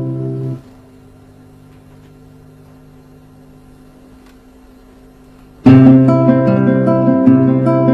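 Classical nylon-string guitar: a chord rings and is damped about half a second in, then a pause with only faint hiss, and about five and a half seconds in the guitar starts a new exercise of plucked broken-chord arpeggios.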